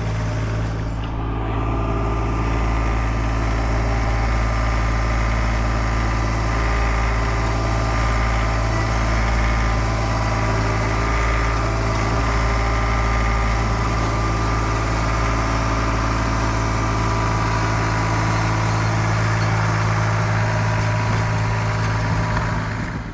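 Tractor engine running at a steady speed, with no change in pitch.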